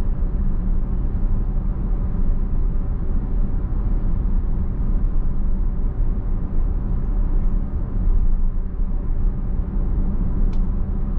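Road noise inside a Tesla electric car's cabin at about 38 mph: a steady low rumble of tyres on pavement, with no engine note.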